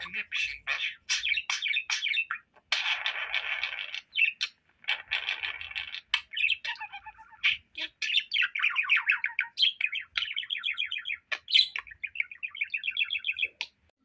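Budgerigar warbling and chattering: a continuous stream of chirps and clicks with scratchy bursts and, in the second half, rapid trills.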